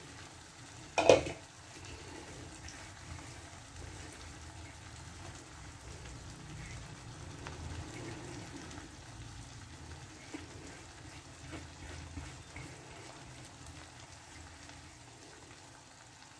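Carrot, pea and potato curry simmering and sizzling gently in an open kadhai on a gas burner, with small scattered ticks. A single sharp clatter about a second in.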